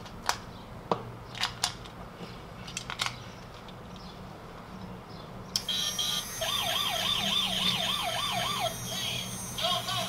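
Plastic clicks as AA batteries are put into a toy police car and the car is handled. About five and a half seconds in, the toy's electronic police siren starts through its small speaker: a wavering wail about three times a second, with a high warble above it. The siren is turned down by a 100-ohm resistor in series with the speaker and now sounds much more acceptable.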